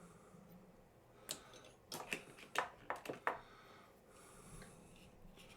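A handful of light, irregular clicks and taps from hand measuring tools being handled and set against a machined part, bunched between about one and three and a half seconds in.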